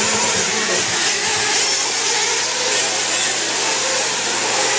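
Several 1/8-scale two-stroke nitro buggy engines running at high revs around the track, heard together as a steady, dense buzz.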